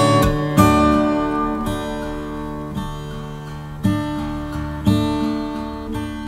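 Acoustic guitar background music: chords struck about once a second, each left to ring and fade.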